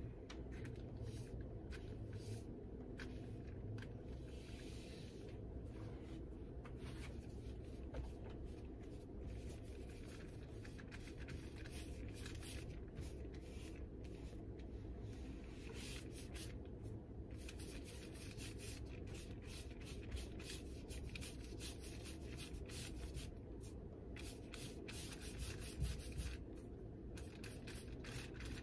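Paintbrush scrubbing across paper in many short, irregular strokes as acrylic paint is brushed on, over a faint low hum.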